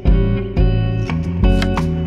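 Background music: plucked guitar over a bass line, with a steady beat of about two notes a second.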